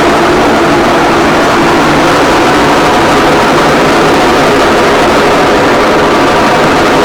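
Colormaq 11 kg washing machine on its spin cycle, making a loud, steady, rough mechanical noise. The noise in the spin is its main fault, one the repairman says calls for rebuilding the machine's transmission ("mecânica").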